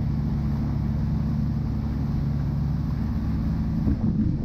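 Volvo Penta 350 hp petrol V8 sterndrive running steadily under way as the boat comes onto the plane, with hull and water noise beneath it. There is a brief bump in the sound near the end.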